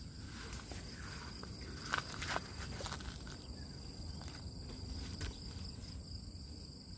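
Steady high-pitched drone of insects over a low rumble of outdoor handling noise, with two sharp clicks about two seconds in.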